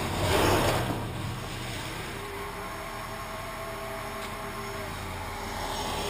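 Small engine running steadily, with a brief louder rush of noise about half a second in.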